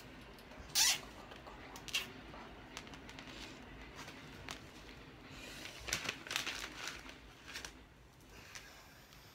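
Handling noises from cable ties and wire-lattice panels during assembly: a brief loud rasp about a second in, then scattered clicks and rustles, thickest around six to seven seconds in.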